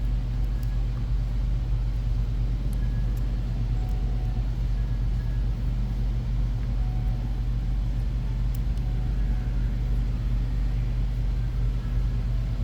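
Steady low background hum at an even level, with a few faint light clicks.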